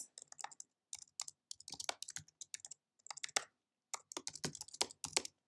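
Typing on a computer keyboard: two quick runs of keystroke clicks with a short pause between them, about halfway through.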